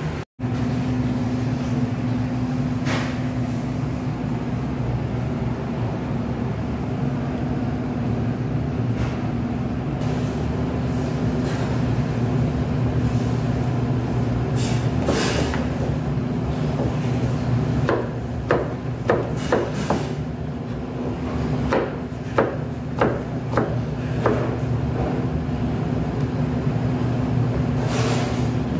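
Large kitchen knife cutting raw potatoes into fry sticks, its blade knocking on a plastic cutting board: scattered single knocks, then a quick run of about ten knocks past the middle. Under it runs a steady low hum of kitchen ventilation.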